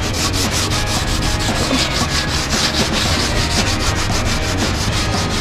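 Green scouring pad scrubbed hard against a blue-painted metal panel in quick back-and-forth strokes, scouring off grime.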